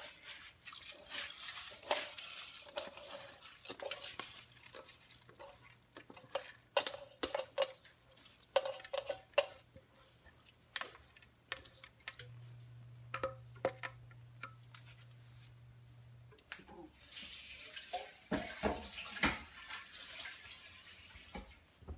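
Raw rice poured from a stainless-steel bowl into a pot of coconut milk: grains rattle and patter off the bowl and into the liquid as a run of scattered clicks and hissing.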